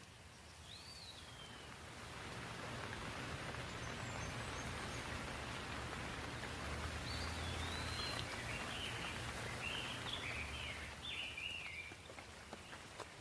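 Outdoor nature ambience: a rushing wash of noise that swells after a couple of seconds and eases near the end, with a low rumble beneath it. Birds chirp over it, one falling call near the start and a run of quick chirps in the second half.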